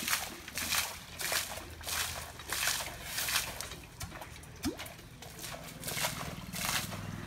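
Muddy water splashing out around a hand-sunk tubewell pipe in rhythmic gushes, about one and a half a second, with each stroke of the pipe as the bore is driven down.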